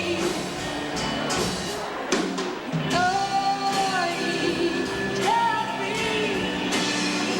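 Live band music with a singer holding long, gliding notes over drums and other instruments, picked up by a camcorder's built-in microphone.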